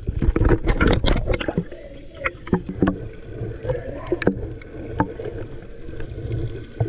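Muffled underwater sound picked up by a camera held below the surface: a steady low rumble of moving water with irregular sharp clicks and knocks, many in the first second and a half and scattered after.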